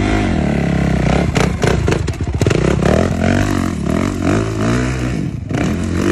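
Dirt bike engine revving, its pitch rising and falling several times as the throttle is worked. There is a rough, pulsing stretch between about one and three seconds in.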